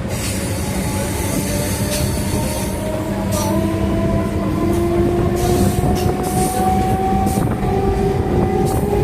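A vehicle running with a steady low rumble and a whine that rises slowly in pitch, with scattered short clicks and knocks.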